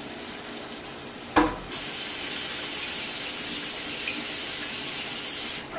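Kitchen sink tap running at full flow: a knock as it is turned on about a second and a half in, then a steady gush of water that stops suddenly near the end.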